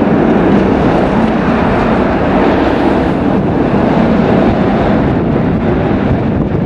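Jet airliner's engines running at high power as it rolls down a rain-soaked runway: a loud, steady rushing noise with water spray thrown up behind the engines.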